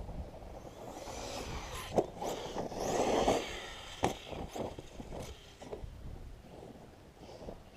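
Arrma Kraton 6S RC truck driving on dirt and gravel, its brushless motor and tyres making an uneven rushing noise that swells about 1 to 4 s in, with two sharp knocks about 2 and 4 seconds in and a few lighter clicks after.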